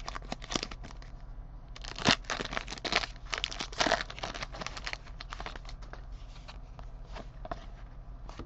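Foil trading-card pack wrapper being crinkled and torn open, with cards being handled. The crackling and tearing is densest about two to four seconds in, then thins to lighter rustles.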